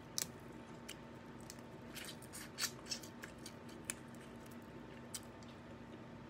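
Eating noises from crab picked and eaten by hand: a handful of soft, scattered clicks and smacks of fingers and mouth, over a faint steady hum.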